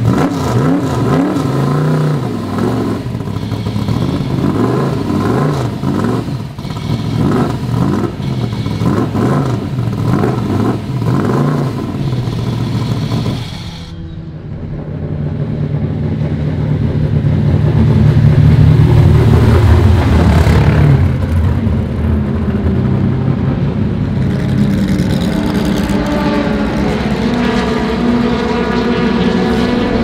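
Vintage race car engines running, their pitch swinging up and down as they rev for the first half. About halfway through the sound changes abruptly to a louder, steadier deep engine note that swells and then shifts in pitch a few times.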